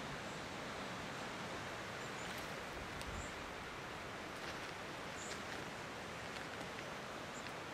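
Steady outdoor hiss of bushland ambience, with a few faint, short, high chirps of small birds every second or two and a couple of faint ticks.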